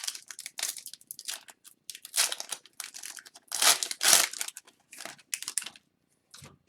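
Foil trading-card pack wrappers crinkling and tearing as hobby packs of hockey cards are opened and the cards handled, in a run of short irregular rustles.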